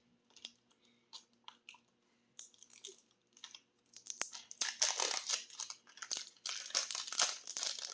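Plastic wrapping on a toy capsule being torn and crinkled by hand. There are scattered crackles at first, then steady crinkling from about halfway.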